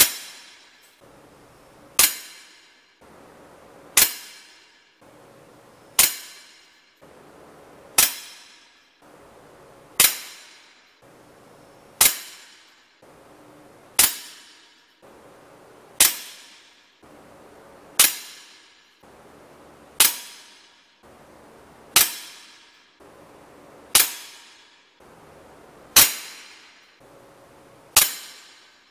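Shots from a silenced Hatsan BT65 SB Elite .22 PCP air rifle, evenly spaced about every two seconds. Each is a sharp crack followed by a ringing metallic clang that fades over about a second.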